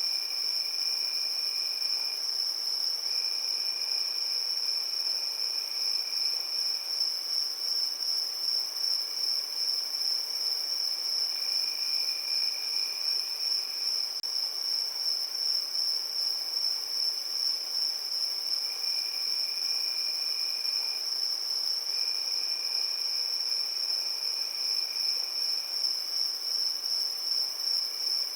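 Crickets chirping in a steady, high-pitched chorus of rapid pulses. A second, lower-pitched call joins in and drops out in stretches of a few seconds.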